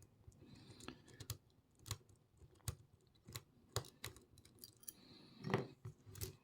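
Faint, sharp metallic clicks, about one every half-second to second, with a louder rattle about five and a half seconds in. An Allen key is being worked down the shackle hole of a Federal 730 padlock to undo the stainless steel nut inside.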